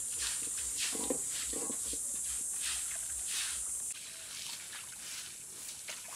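A stiff broom scrubbing a wet concrete floor, in repeated short strokes about two to three a second, over a steady hiss. A brief pitched sound comes about a second in.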